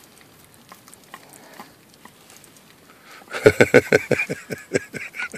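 Collie licking a vanilla ice cream cone: a few faint wet clicks at first, then a quick run of licks, about seven a second, for the last two seconds.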